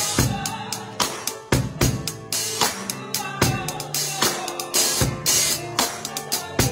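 Drum kit played in a steady groove with wooden sticks: kick and snare hits roughly every half second to second, with cymbal wash on top. Sustained pitched music sounds underneath the drums.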